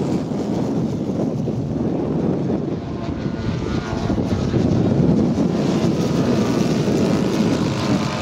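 Propeller engines of several large-scale radio-controlled WW2 fighter models running as they fly past, growing a little louder about halfway through.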